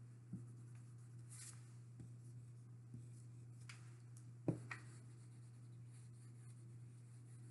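Marker writing on a small whiteboard: faint, scattered scratches over a steady low hum. A sharp knock comes about four and a half seconds in, with a softer one just after.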